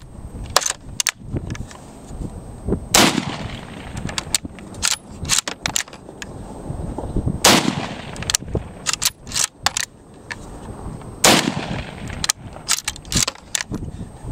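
Mosin Nagant M38/M44 carbine in 7.62×54R fired three times, about four seconds apart, each shot a sharp blast with a long fading tail: a heavy muzzle blast. Short clicks between the shots as the bolt action is worked.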